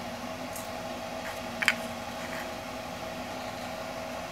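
A steady background hum with two faint even tones. About a second and a half in comes a quick double clink: a spoon knocking against a steel mixing bowl as black pepper is shaken over chicken.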